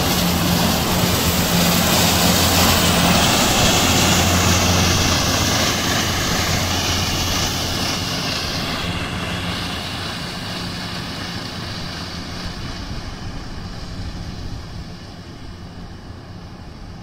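John Deere tractor mowing with a front-and-rear disc mower combination: a steady engine drone under the whir and hiss of the spinning mowers. It is loud at first, then fades steadily as the rig moves away, the hiss dropping off about halfway through.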